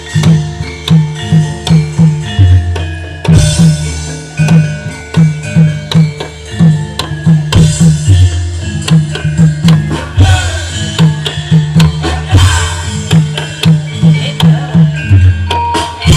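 Loud Javanese kuda lumping music: hand drums (kendang) play a quick, steady rhythm of low strokes, with pitched gamelan tones and sharp metallic strikes over them.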